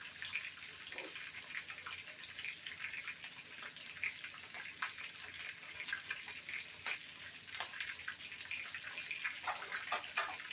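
Flour-dusted chicken pieces searing in hot oil in a skillet: a steady sizzle with irregular small crackles and pops, a few sharper ones near the end.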